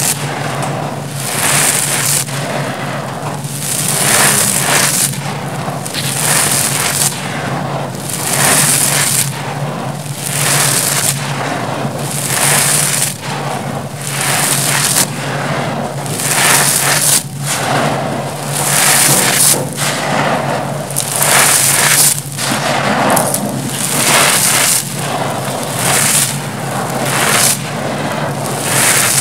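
Dry grey crushed concrete gravel and dust crumbled in the hands and poured back onto the pile, crunching and hissing. The scoop-and-pour repeats about once a second.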